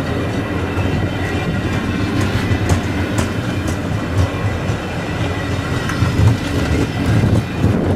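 Via Rail passenger train rolling through, its cars' wheels clicking and knocking over the rails over a steady low rumble.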